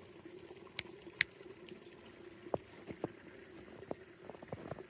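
Faint trickle of a creek running under snow and ice, with scattered soft clicks and crunches: two sharp ticks about a second in, and more short clicks in the second half.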